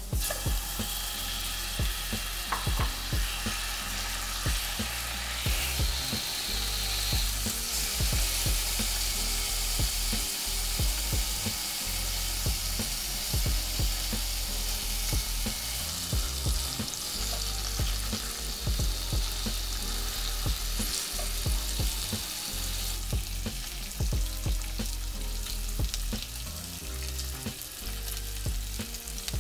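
Shrimp and minced garlic sizzling in hot oil in a ceramic pot, stirred and turned with chopsticks; the sizzle is steady and eases somewhat near the end.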